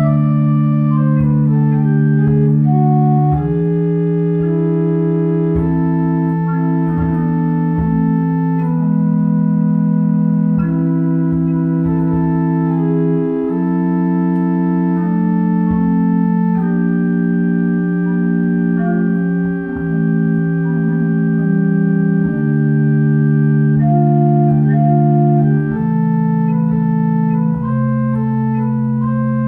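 Home-made chest organ with one rank of wooden principal pipes, sounding on the Principale 8' stop, playing slow, sustained chords whose notes overlap and change every second or two.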